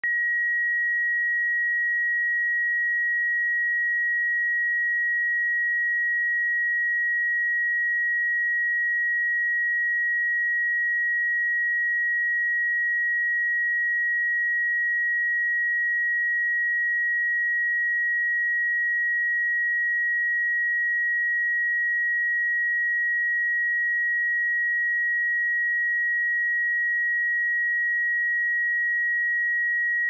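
A pure 1902 Hz sine-wave test tone, one steady high-pitched note held at constant loudness with no other sound.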